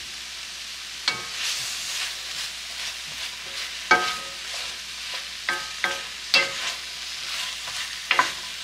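Sliced peppers, onions and asparagus sizzling in a cast iron skillet while a wooden spatula stirs them, with several sharp knocks of the spatula against the pan, the loudest about four seconds in.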